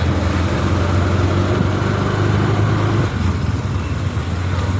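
A motor vehicle's engine running steadily close by: a continuous low drone over general street traffic noise.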